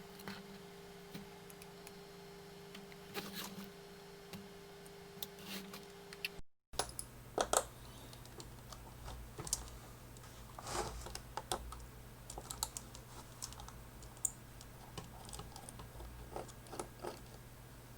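Scattered small clicks and scrapes of a knife tip and screwdriver on the plastic screen bezel of a Toshiba Satellite C650D laptop, as the glued screw covers are picked off and the screws undone, over a low steady hum. The sound drops out briefly about six and a half seconds in.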